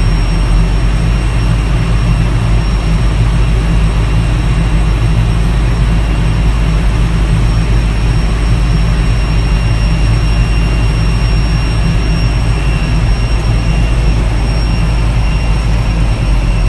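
Towbarless pushback tractor's engine running steadily under load while it pushes back an Airbus A320 held by the nose gear, heard from inside the cab, with a steady high whine over the drone.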